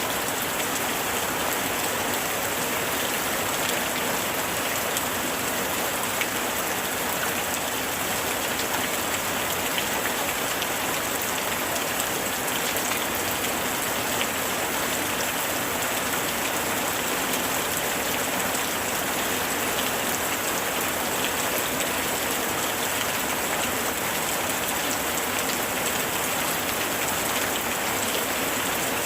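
Heavy rain falling steadily: an unbroken hiss of rain with fine pattering of drops, and no thunder.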